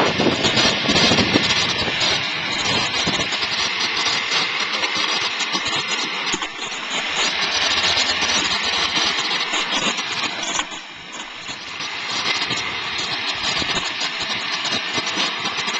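Motor scooter engine running while towing a trailer, heard from the trailer behind it, with a dense rushing noise mixed in; the sound drops off briefly about two-thirds of the way through, then picks up again.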